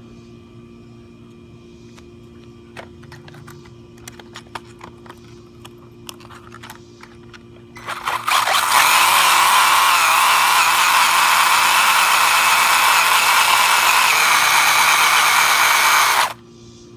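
Light clicks and knocks, then about eight seconds in the RC car's electric motor and drivetrain run at full throttle with a loud, steady high whine as its tyres spin on concrete while the car is held in place by hand, a burnout on an already overheated motor. The whine cuts off suddenly near the end.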